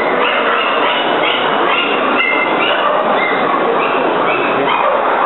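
Steady hall noise of a crowd, with music over a public address playing a line of short held notes.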